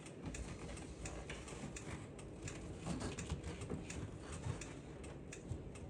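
A run of faint, light clicks and ticks, several a second, over a low background hum.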